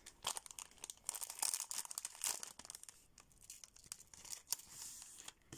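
Thin plastic mailing packet crinkling and rustling in the hands as it is opened and sheets of nail stickers are slid out, with dense, irregular crackles.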